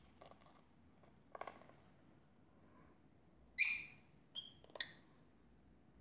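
Rosy-faced lovebirds giving a few short chirps: faint brief notes in the first second and a half, then one louder, sharp high chirp about three and a half seconds in, followed quickly by two shorter ones.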